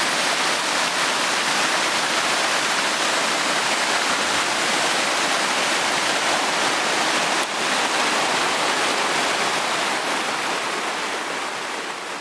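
Mountain stream running high after recent rains, its white water rushing and splashing over boulders and small cascades in a steady rush. It grows a little quieter near the end.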